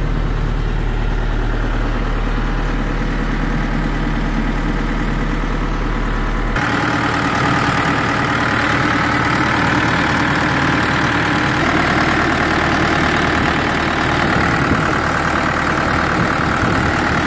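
Volvo BL71 backhoe loader's diesel engine idling steadily. It is heard first from inside the cab as a deep hum, then, from about six and a half seconds in, close up at the open engine bay, where it sounds brighter.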